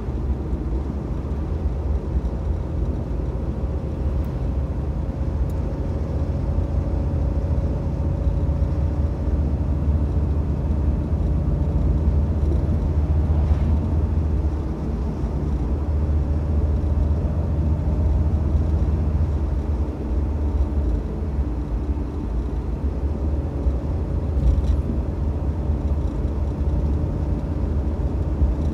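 Mitsubishi Debonair driving at a steady pace, its engine and tyre noise heard from inside the cabin as a steady low rumble.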